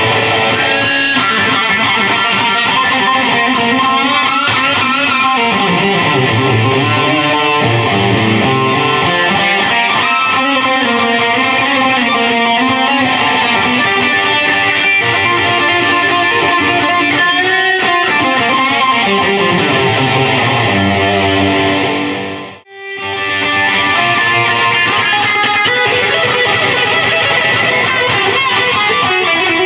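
Gibson Les Paul electric guitar played through a Fender Super Champ X2 amp, with loose single-note lines and chords noodled continuously. The sound breaks off sharply for a moment about two-thirds of the way in, then the playing resumes.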